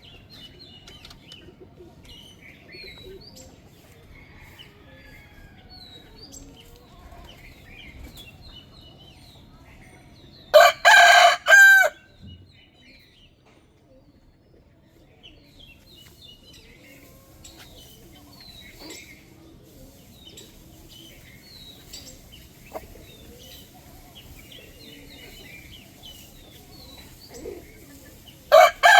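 A rooster crowing loudly twice: one crow about a third of the way in and another starting near the end. Each crow ends in a long held note that falls in pitch. Faint chirps of other birds can be heard between the crows.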